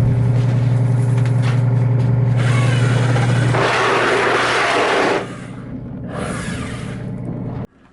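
A machine running with a steady low hum and rumble. A stretch of louder hissing noise comes in partway through, after which the sound drops to a lower level and then cuts off abruptly near the end.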